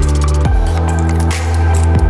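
Electronic background music with a deep, held bass line, kick drums and hi-hats.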